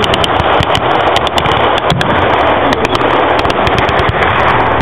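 Continuous crackle of blank gunfire from rifles and machine guns, many shots overlapping in quick, irregular succession.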